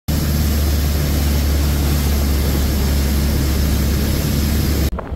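Motorboat engine running steadily under way, with a deep hum and a rushing hiss of wind and water over it. It cuts off abruptly near the end.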